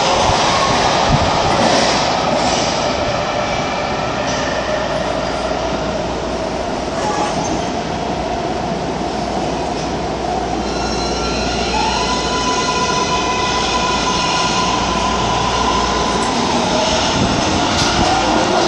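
MARTA rapid-transit subway train running along an underground station platform: a continuous rumble of steel wheels on rail with high, steady whining tones, one of which rises and then holds about twelve seconds in.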